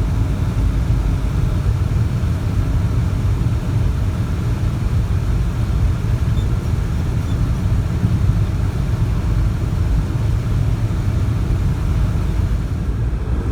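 Steady low rumble of a Toyota car driving at highway speed, with road and engine noise as heard inside the cabin.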